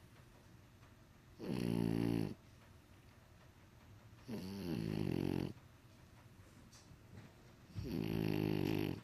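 French Bulldog snoring in its sleep: three snores about three seconds apart, each lasting about a second.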